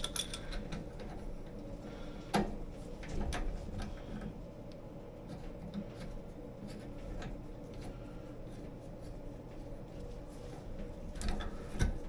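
Scattered light clicks and taps of plumbing fittings and hose being handled and screwed on by hand, with a sharper knock about two seconds in and a few more near the end, over a steady low hum.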